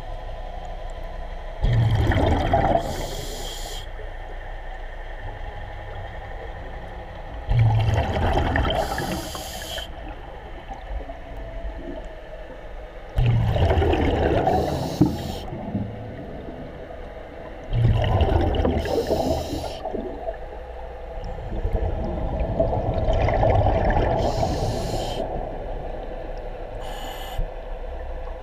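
Scuba diver breathing through a regulator underwater: five bubbling exhalations about every five seconds, each followed by a short hiss, over a steady faint hum.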